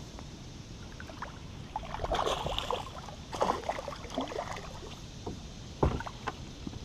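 Water splashing and sloshing against a kayak in irregular bursts, with a few sharp knocks, as a hooked bass is landed.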